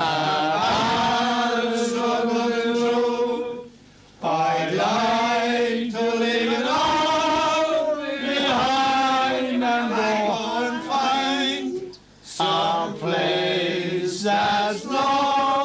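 Men singing a slow song together without accompaniment, holding long notes. The singing breaks off briefly about four seconds in and again about twelve seconds in.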